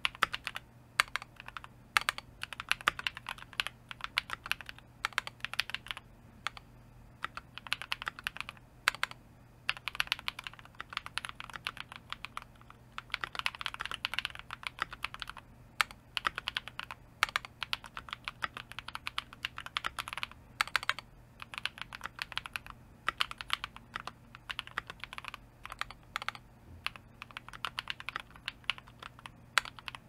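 Keychron V1 mechanical keyboard with MMD Mint Blue switches being typed on quickly and steadily, a dense run of keystroke clicks with a few short pauses.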